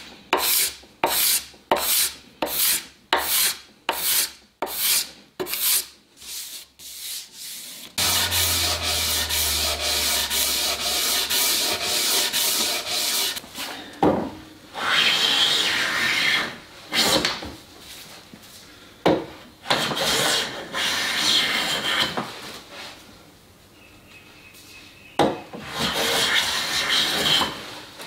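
Hand plane shaving wood: quick, even strokes, nearly two a second, across a curved bent lamination, fading off. After a stretch of steady scraping noise with a low hum, longer, slower plane strokes follow along a table leg.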